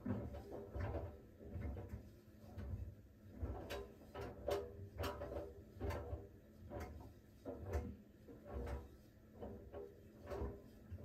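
Siemens iQ700 washer-dryer's drum turning slowly in the steaming phase of its smartFinish steam programme, the shirts tumbling with soft knocks a little more than once a second over a faint steady hum.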